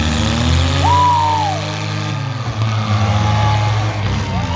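Demolition derby car engines running and revving in the arena. A higher pitched sound rises and then falls twice, about a second in and again near the end.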